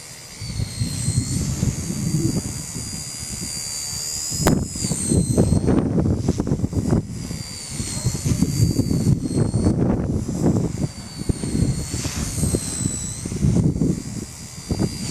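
Blade mCPX micro RC helicopter's motor and rotor whining at a high pitch that dips and rises as it is flown, over heavy wind buffeting the microphone. A single sharp click about four and a half seconds in.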